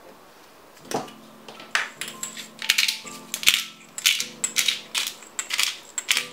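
Black peppercorns being ground in a hand-twisted pepper grinder: a run of short gritty crunches, about three a second, after a single knock about a second in. Soft background music plays underneath.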